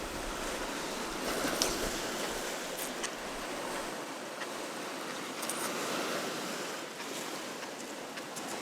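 Meat sizzling on a moo kra ta grill pan: a steady hiss with a few faint pops.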